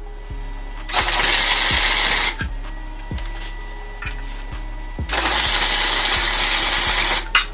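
Welding arc crackling in two bursts, a short one about a second in and a longer one from about halfway to near the end, as a bracket of steel square tubing is tack-welded on. Background music with a steady beat runs under it.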